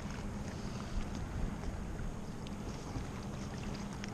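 Wind buffeting the microphone and water moving around a kayak, with a steady low hum underneath and a few light clicks of handling.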